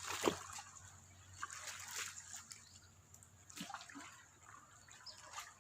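Shallow pond water trickling, dripping and splashing in small scattered bursts as fish are caught by hand in the nearly drained pond.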